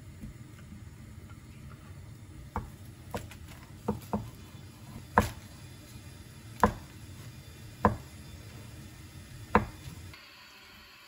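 A kitchen knife coming down on a cutting board in slow, uneven cuts, about eight sharp knocks. A steady low hum runs underneath and cuts off suddenly near the end.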